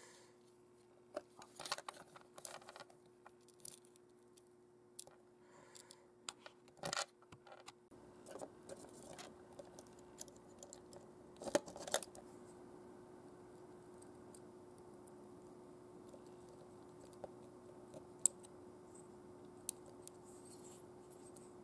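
Faint handling sounds of small repair work on a plastic toy: scattered clicks and scrapes of a precision screwdriver and tweezers against the hard plastic body and parts, the sharpest clicks about seven and twelve seconds in. A steady faint hum runs underneath.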